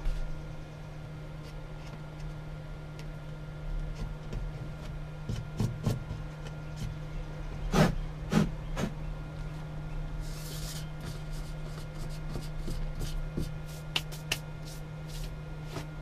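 Scattered light clicks and knocks of hands working at a camper van's wall panel around a freshly cut hole, with a short brushing hiss about ten seconds in. A steady low hum runs underneath.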